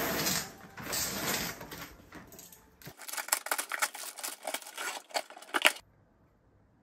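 Delivery packaging being handled: a rustling swell of cardboard and plastic, then a run of sharp crackles and clicks as a box is opened and its paper packing is disturbed. The handling stops suddenly about six seconds in.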